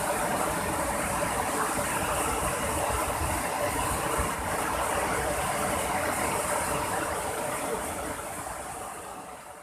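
Fast-flowing river water rushing steadily, a continuous hiss with a low rumble that fades out near the end.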